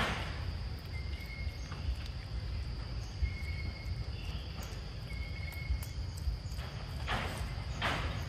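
Insects buzzing steadily at a high pitch, over a low rumble. A short, even whistle sounds three times about two seconds apart, and two brief rustles come near the end.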